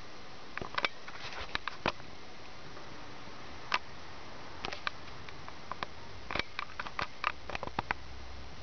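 Light, irregular clicks and taps, some in quick clusters: a four-week-old kitten's claws and paws on a hardwood floor as it runs.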